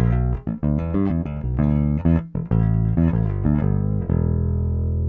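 Dingwall ABZ six-string electric bass played dry, with no effects, on its neck pickup: a quick run of plucked notes, ending on one long held note.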